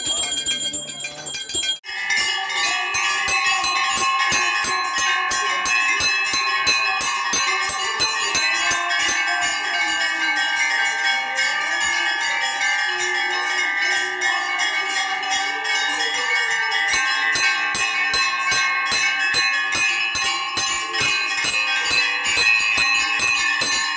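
Metal temple bells rung rapidly and continuously during a Hindu puja, several ringing tones clanging over one another. The ringing starts abruptly about two seconds in.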